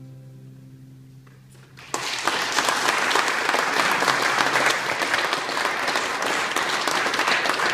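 The last strummed acoustic guitar chord rings out and fades; about two seconds in, the audience breaks suddenly into applause that carries on steadily.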